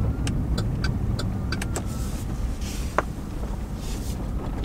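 A vehicle running with a steady low rumble, with a run of light ticks, about three a second, over the first couple of seconds and one sharper click about three seconds in.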